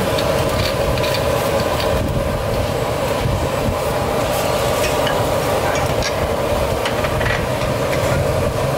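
Steady roar of a gas burner under a large steaming noodle-soup stock pot, with a few light clinks of utensils and bowls.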